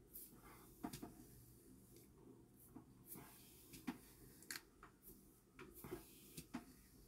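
Faint, irregular clicks and light taps of small objects being handled, about ten over several seconds, over a low room hum.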